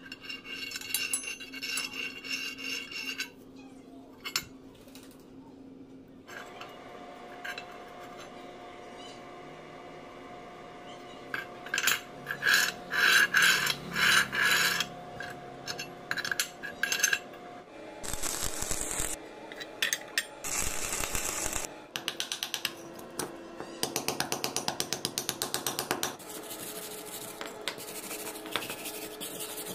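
Steel parts scraping and clinking against each other as a vise jaw is slid back and forth along its slotted steel channel. Near the end a hand wire brush scrubs a steel part in rapid, even strokes.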